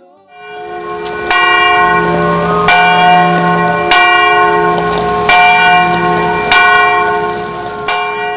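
A church bell tolled at an even, slow pace. There are about six strikes, one every second and a bit, and each stroke's ringing tones carry over into the next.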